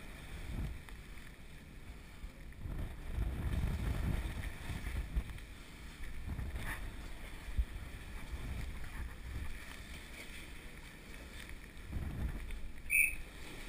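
Wind buffeting the microphone high in a square-rigger's rigging: an uneven low rumble that swells and fades, with one brief high squeak near the end.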